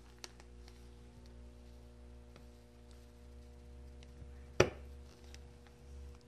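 Small knife cutting a wedge at the base of a chestnut scion stick: faint ticks as the blade works, and one sharp click about four and a half seconds in, over a low steady hum.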